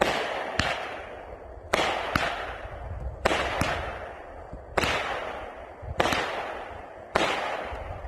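Aerial fireworks going off: about nine sharp bangs, some in close pairs a fraction of a second apart, each trailing off in a long echoing tail.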